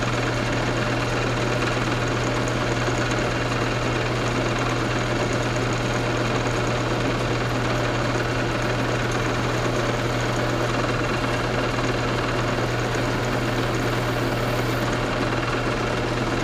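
Round-column mill-drill running steadily with a low motor hum while a small end mill cuts into a square aluminium bar.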